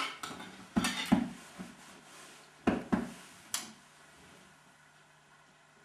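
Knife and fork clinking and knocking against a plate and the table, about five sharp knocks in the first four seconds as the cutlery is set down.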